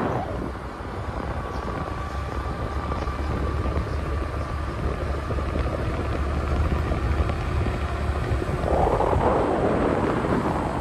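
A scooter riding along with wind buffeting the microphone as a steady low rumble, and a thin steady whine in the first few seconds. A rush of noise swells about nine seconds in.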